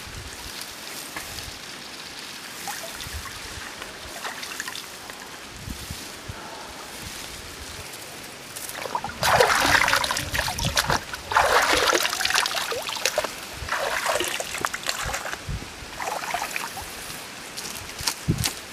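Water splashing and sloshing as hands stir it in a concrete tank, in irregular bursts from about halfway through, after a quieter stretch of steady hiss.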